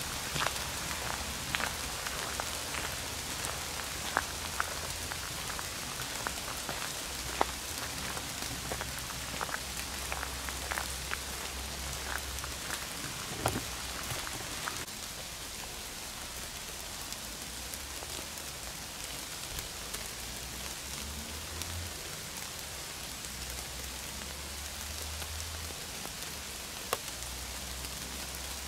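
Steady rain in a forest, with single heavy drops striking an umbrella overhead. About halfway through the drop strikes grow fewer and the rain a little quieter.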